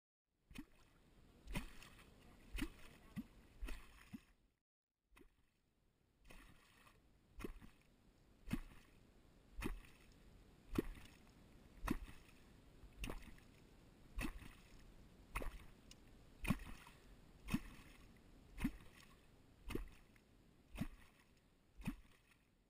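Catfish clonk (kuttyogató) driven into the river water beside a boat about once a second, each stroke a deep hollow plop with a splash, with a short pause after the first few strokes. The sound is made to call wels catfish and is said to resemble catfish feeding.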